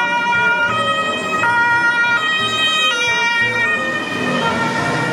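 Toy fire truck's electronic siren playing a two-tone hi-lo pattern, switching pitch about every 0.7 seconds. The pattern breaks up near the end.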